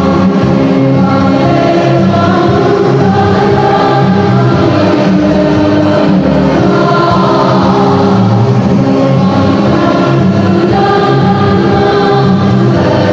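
High-school choir singing a march together, with several voice parts held in chords that change every second or so.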